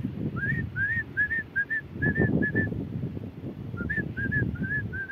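A person whistling short, rapid rising-and-falling chirps in two runs, the kind of whistle used to call a dog back, over a low rustling noise.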